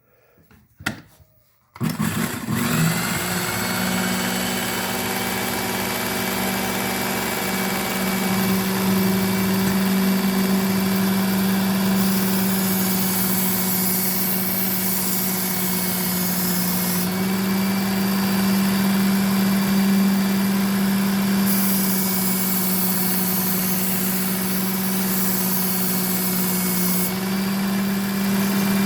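Ken Onion belt knife sharpener's motor starting about two seconds in and then running with a steady hum. Twice, for about five seconds each, a high hissing grind as a Shun Damascus knife blade is drawn across the running abrasive belt.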